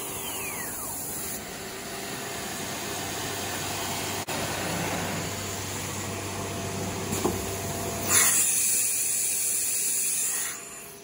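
Kimla CNC router and its chip extraction running, a steady rushing noise like a vacuum, with a short falling whine in the first second. About eight seconds in the rush grows louder and brighter for a couple of seconds, then drops away just before the end.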